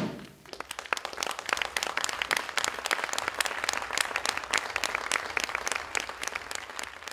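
Audience applauding, a dense patter of many hands clapping that starts about half a second in and fades out near the end.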